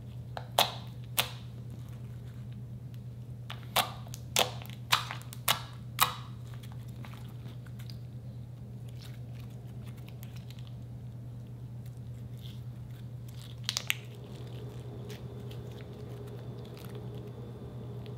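Thick slime being folded and kneaded by hand, giving a run of sharp clicks and pops as pockets of trapped air are squeezed out. There are two pops in the first second or so, five more in quick succession around four to six seconds in, and a short crackling cluster near fourteen seconds.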